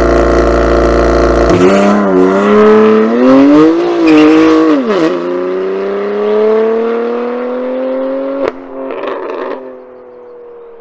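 BMW M3 Competition's twin-turbo straight-six held at high revs for a launch, then launching hard and accelerating away. The engine note climbs and drops back at several quick upshifts in the first five seconds, then fades as the car pulls into the distance. A sharp crack sounds about eight and a half seconds in.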